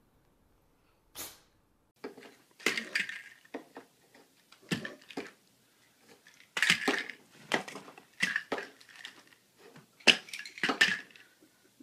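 Plastic pill bottles clattering and rattling as a cat paws them and knocks them over on a wooden dresser top: a string of sharp clacks and rattles in irregular bursts starting about two seconds in.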